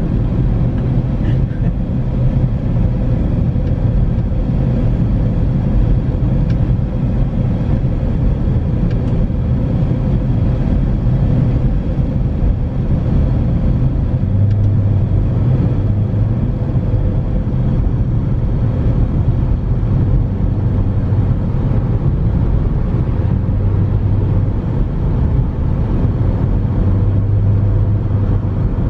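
Car being driven: a steady rumble of engine and road noise, the engine note swelling a few times in the second half.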